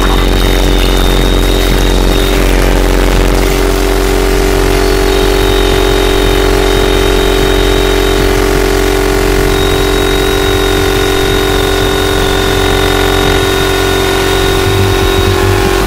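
Harsh experimental noise music: a loud, dense, engine-like drone with steady low hums and a thin high whistle that drops out and comes back several times.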